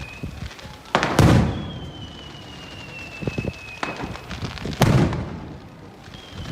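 Aerial fireworks shells bursting: two loud booms, about a second in and near five seconds, each with a rolling rumble, and a few smaller pops between them. A thin high whistle slides slowly down in pitch in the gaps between bursts.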